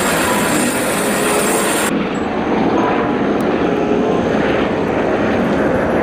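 Eurocopter EC130 helicopter's turbine and rotor running steadily at close range as it lifts off. About two seconds in the upper hiss drops away suddenly, like a cut between clips.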